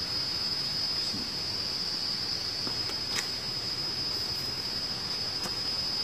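A steady, high-pitched chorus of trilling insects, with a couple of faint ticks about halfway through and near the end.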